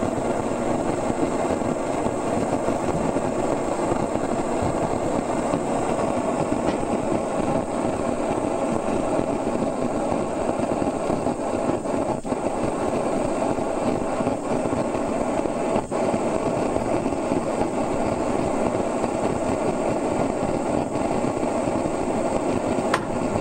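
Steady, even running noise of an engine or similar machine.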